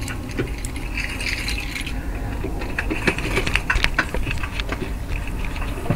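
Light metallic clinking and rattling in a golf cart, with a quick run of clicks in the middle, over a steady low rumble.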